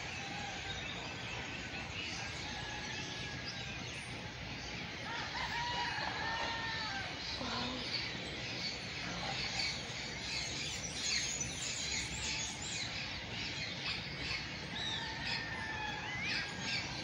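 Dawn chorus: many birds chirping and twittering at once, with a longer, lower call arching up and down about five to seven seconds in.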